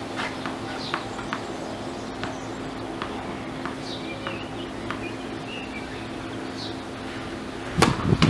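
A tennis ball bounced on a hard court with a few sharp knocks early on, while birds chirp. Near the end comes one loud crack of a racket hitting the ball on a serve.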